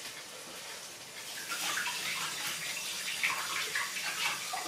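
Water running from a kitchen tap, splashing irregularly as hands are washed under it; it gets louder about a second and a half in.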